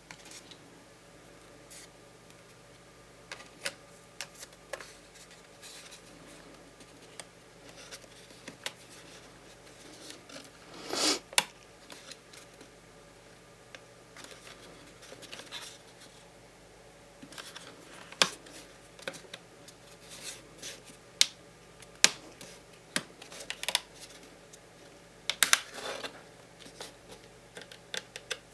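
Irregular small plastic clicks, taps and short scrapes of hands working on a laptop, with a longer scrape about eleven seconds in and a quick cluster of clicks near the end, over a steady faint hum.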